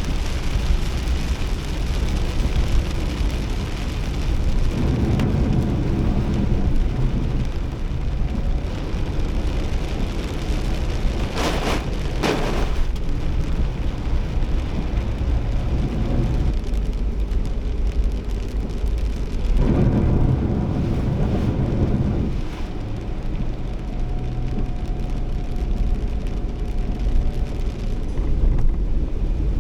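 Heavy rain drumming on a Nissan Kix kei SUV while it drives, heard from inside the cabin over a steady low road and engine rumble. The engine note swells about five seconds in and again around twenty seconds, and a short hiss passes about twelve seconds in.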